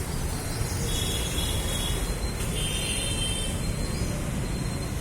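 Steady low rumble of city traffic, with short high-pitched trills breaking in about every two seconds.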